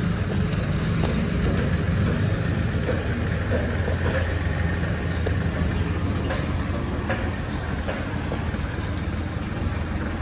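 Steady low rumble of vehicle noise, with a few faint scattered clicks.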